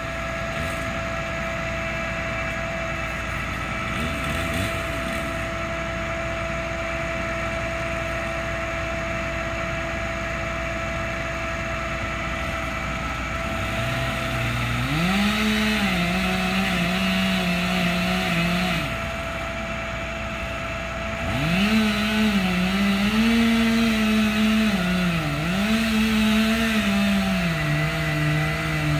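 Chainsaw revving up about halfway through and running at high speed in two long bursts with a short break between, its pitch dipping now and then, over a steady mechanical hum.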